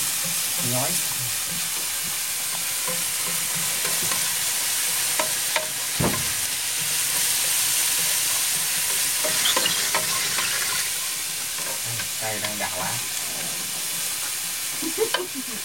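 Food sizzling in a cast-iron pan over a wood fire as it is stirred with long wooden chopsticks: a steady frying hiss, with a sharp knock about six seconds in.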